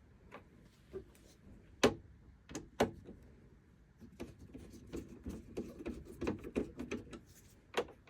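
Plastic door catch of a Thetford caravan fridge, with a new spring fitted, clicking as it is handled. Two sharp clicks about two and three seconds in, then a run of lighter clicking and rattling.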